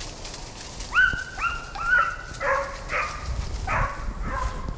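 A deer hound barking in a quick run of about eight short yelping barks, starting about a second in, the first few rising sharply at the start.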